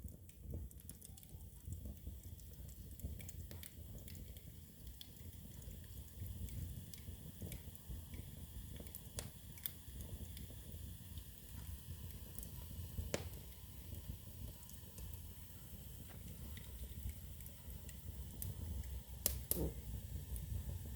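Wood fire burning in a fireplace: a low, steady rumble of flames with scattered crackles and a few sharp pops, the loudest about 13 seconds in and again near the end.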